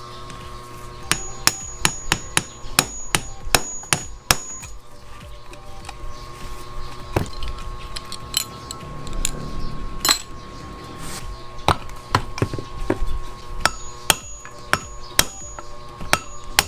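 Hammer blows knocking the crankshaft bearing out of a Yamaha DT125 two-stroke crankcase. A quick run of sharp strikes is followed by a few scattered blows, then another run of strikes near the end.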